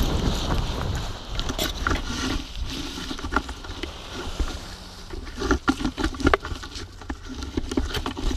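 Wind rushing on the microphone dies away over the first couple of seconds as the parachutist touches down on dirt, followed by irregular rustling, scuffing and clicks of parachute and wingsuit fabric as the canopy collapses.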